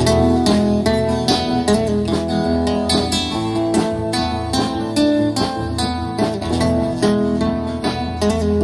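Live band playing an instrumental passage: acoustic guitars picking and strumming over a steady beat from a drum kit, with a bass line underneath.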